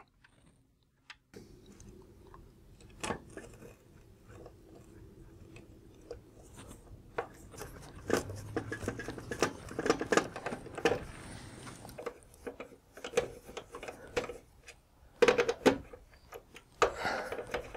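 Fuse block being screwed onto a plywood panel with a hand screwdriver: irregular clicks, scrapes and creaks of the screws, plastic block and tool being handled. The clicks are thickest in two spells, in the middle and near the end.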